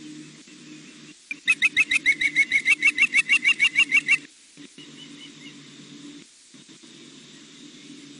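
Juvenile osprey giving a rapid run of high, upslurred chirps, about six or seven a second for nearly three seconds, starting about a second and a half in. A faint low hum lies underneath.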